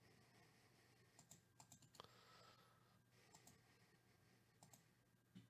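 Faint computer clicking, a few quick clicks at a time in small clusters, over near silence.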